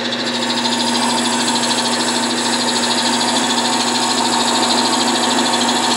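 Wood lathe running while a D-Way bead tool cuts beads into a spinning spalted wood bottle-stopper blank: a steady whir of cutting over a constant motor hum.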